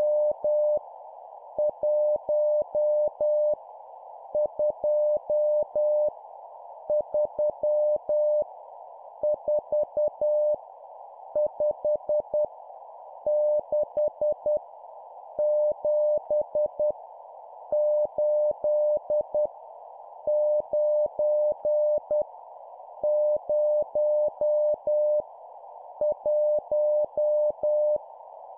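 Morse code (CW) sidetone sending numbers at 10 words per minute: a steady tone near 600 Hz keyed into dots and dashes. Each digit is a group of five elements, with a short pause between digits. It plays over a steady band of hiss.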